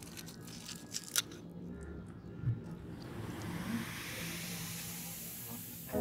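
Knife crunching through the crispy skin of fried pork belly: a few sharp crackles in the first two seconds, the loudest just over a second in. Then a hiss swells and rises in pitch.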